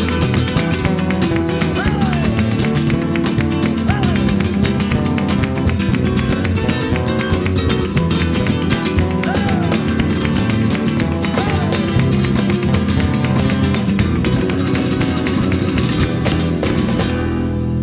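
Flamenco guitar music: acoustic guitars strummed fast and steady over a bass line.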